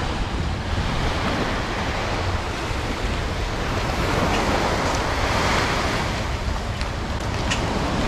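Wind buffeting the microphone over a steady rush of water and waves.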